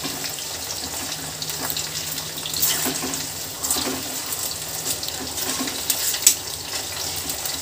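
Coated chicken pieces deep-frying in hot oil in an iron kadhai, sizzling steadily, with a slotted metal spoon clinking against the pan as the pieces are turned; a sharp clink about six seconds in is the loudest.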